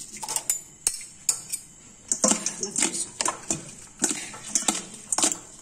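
Metal utensil clinking and scraping against a stainless steel colander as instant noodles are tossed with their seasoning powder. A few light ticks at first, then frequent clinks and scrapes from about two seconds in.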